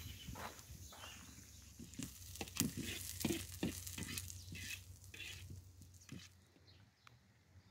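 Chopped onions sizzling in a black wok while a metal spatula scrapes and stirs them in a run of strokes that die away near the end.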